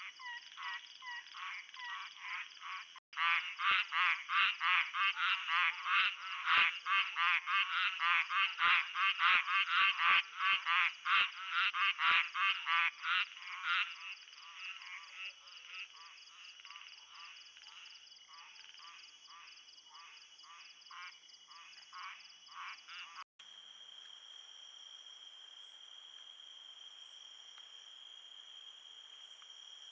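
Frogs calling in a chorus of rapid, pulsing croaks, loudest in the first half and thinning out later. After a sudden cut near the end, a steady high insect trill takes over.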